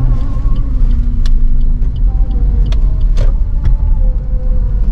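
Car interior rumble while driving slowly over a rough, uneven surface: steady low engine and road noise with a few sharp knocks from bumps.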